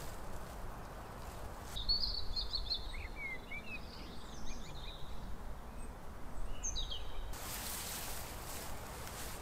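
Footsteps swishing through long grass, then for several seconds small birds chirping in short notes and little glides. The swishing steps return near the end, over a faint low rumble throughout.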